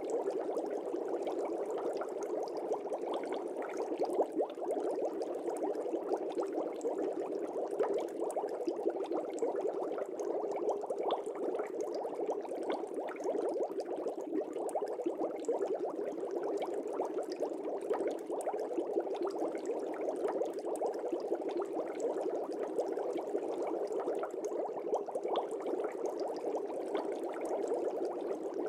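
Fish tank bubbles: a steady, dense bubbling with many small pops.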